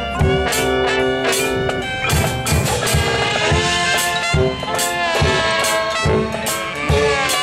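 Marching band playing: brass horns sounding held chords and melody lines over sharp drum hits.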